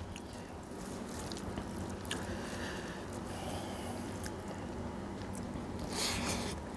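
Hand mixing rice and fish curry on a steel plate: soft squishing with faint scattered clicks, then a brief louder sound near the end as a mouthful is eaten.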